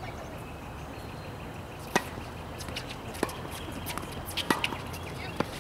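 Tennis ball being struck by racquets and bouncing on a hard court during a rally. The hits are sharp pocks, the first and loudest about two seconds in, then more about a second apart.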